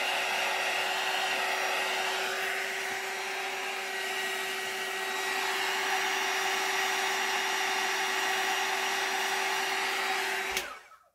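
Handheld craft heat gun blowing steadily, a fan rush with a steady motor hum, heat embossing a stamped sentiment; it is switched off near the end and the sound cuts off suddenly.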